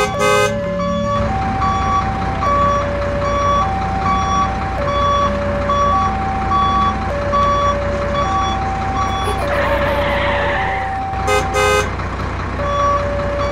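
Repeating electronic tone loop: two alternating low tones, each held about a second, under short high beeps about twice a second, over a steady low hum. A brief rustle and scrape around ten seconds in, and a few clicks near the start and again about eleven seconds in.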